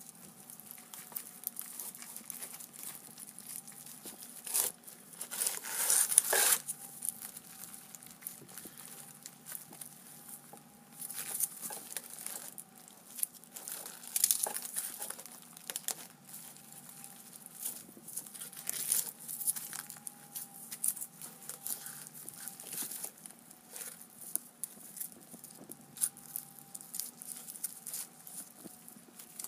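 Crumpled aluminium foil crinkling and crackling as gloved hands pull it apart, in irregular bursts, loudest about six seconds in.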